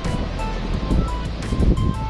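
Background music with short melodic notes and light percussion, over a low rumble of wind and surf.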